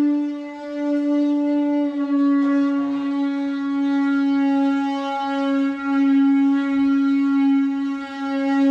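A bicycle handlebar tube blown into like a horn, giving one long, steady, buzzing note.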